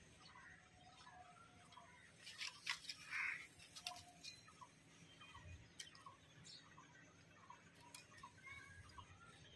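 Near silence: faint outdoor ambience with short, soft chirps repeating about every half second, and a few sharp clicks about two to three seconds in.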